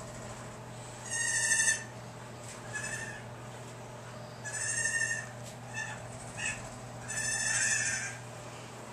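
Bottle-fed goat kids bleating in the background: three loud, high cries a few seconds apart, with shorter, fainter bleats between them, over a steady low hum.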